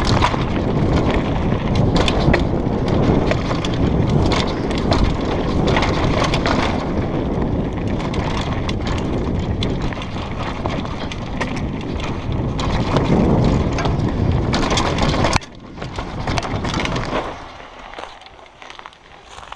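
Mountain bike descending fast over a rough dirt forest trail: wind rushing over the camera microphone, with the bike rattling and the tyres knocking over rocks and roots. About fifteen seconds in the noise drops off sharply and turns much quieter.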